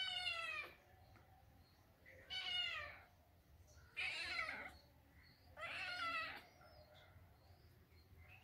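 A cat meowing four times, each meow under a second long and falling in pitch, spaced about two seconds apart.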